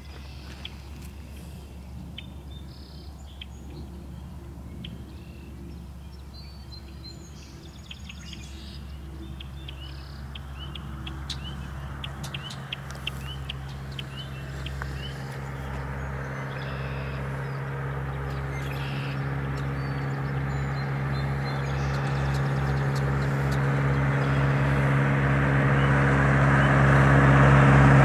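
Birds chirping over a low steady hum, while a motor vehicle's engine comes in from about ten seconds in and grows steadily louder as it approaches, becoming the loudest sound near the end.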